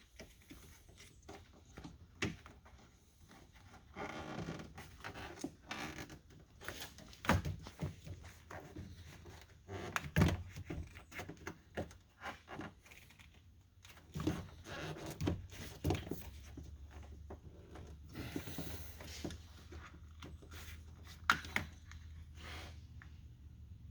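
Rubber window seal being pushed and worked down into a truck door's glass channel where it fits tight: scattered thunks and knocks of hands pressing on the door, with short stretches of rubber rubbing and scraping against the frame and glass.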